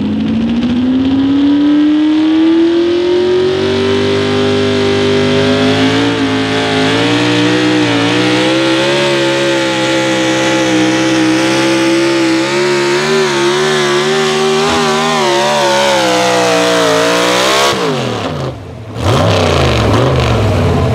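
Super stock two-wheel-drive Chevrolet Silverado pulling truck's engine at full throttle dragging the pulling sled. The pitch climbs over the first few seconds, then holds high and wavers, and falls away sharply about three seconds before the end. After a brief dip, another pulling truck's engine is heard near the end.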